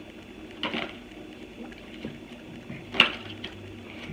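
Tarot cards being handled and drawn from the deck: a short rustle about half a second in, light ticks, and one sharp card snap about three seconds in, over a steady faint hum.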